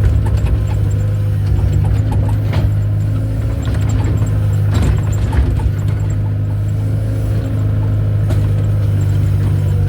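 Excavator engine running steadily, with a few sharp metallic clanks.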